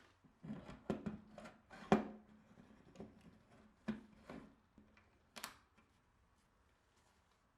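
A series of irregular knocks and clicks, like wooden parts and hardware being handled and set down on a workbench, about eight in all over the first five seconds.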